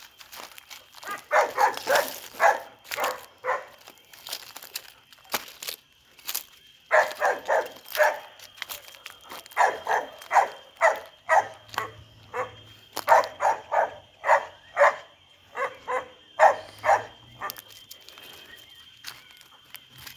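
Dog barking in repeated bouts of several quick barks, about three a second, with short pauses between the bouts.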